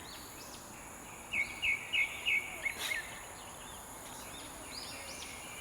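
Wild birds chirping and calling, with a quick run of four loud repeated notes about a second and a half in, over a steady high insect buzz.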